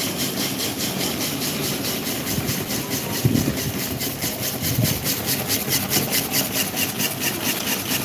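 Electric table fan running: a steady whir of motor and moving air with an even pulsing of about four to five beats a second. A low thump about three seconds in.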